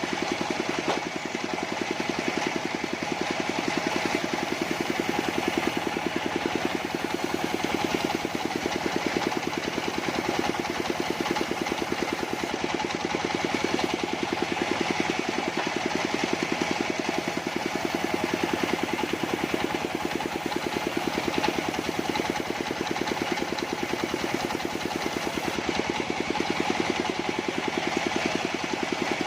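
Portable sawmill's engine running steadily at an even speed.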